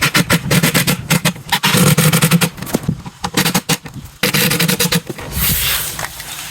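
Cordless power drill-driver driving screws into an IKEA base cabinet, its motor whirring in two runs with a rapid clicking clatter.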